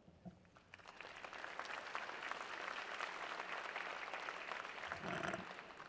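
Audience applauding. The clapping builds about half a second in, holds steady, and fades near the end.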